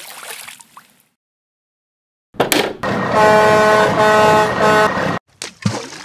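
A vehicle horn honking three times, two longer honks and then a short one, over a steady noise.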